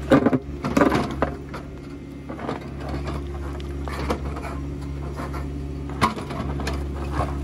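Mini excavator (02 class) engine running steadily while its toothed bucket digs into rocky soil, with scraping and clattering of the teeth against dirt and stones, loudest right at the start, about a second in, and again around six seconds.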